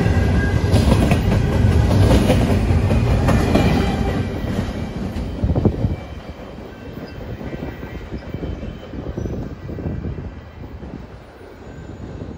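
Double-stack intermodal freight train's cars rolling past on the rails, with a loud, dense rumble and clatter as it picks up speed. About halfway through there is one sharp knock, then the sound drops off as the train draws away.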